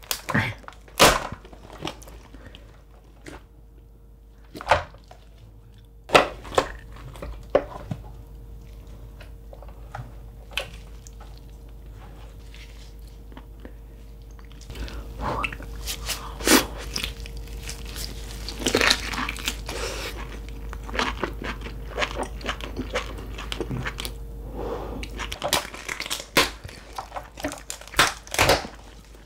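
Shell of a 3 kg cooked lobster cracking and crunching as gloved hands pull it apart and tear out the meat: scattered sharp snaps, growing into denser crackling from about halfway through.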